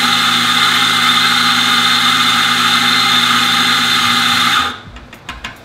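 Electric espresso grinder running on a timed dose of about five seconds, a steady motor whir as it grinds coffee into a portafilter, cutting off sharply near the end. A few light clicks follow.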